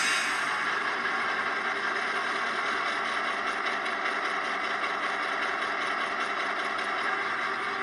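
EMD 8-645 diesel engine sound from an ESU LokSound DCC decoder, played through the small speaker of a model locomotive. The engine idles steadily with no change in revs.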